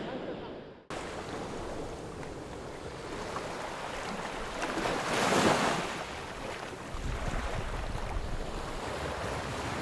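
Surf washing on a beach, with wind buffeting the microphone. The sound fades out and cuts back in abruptly about a second in, a wave swells and breaks around the middle, and low wind rumble picks up near the end.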